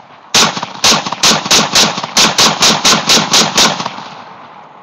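SKS rifle in a bullpup stock firing twelve quick semi-automatic 7.62×39 mm shots, up to about four a second, with two brief pauses in the string. Each shot carries a short echo, and the echo fades out after the last shot.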